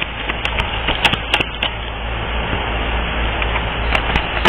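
Tarot cards being shuffled and handled, a run of quick sharp clicks over a steady hiss, the clicks thinning out after about a second and a half and returning briefly near the end.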